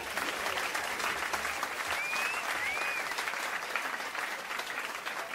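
Audience applauding, with two short whistles about two to three seconds in.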